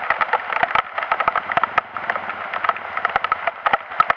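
Heavy rain: a steady hiss with dense, irregular sharp clicks of drops striking close to the microphone.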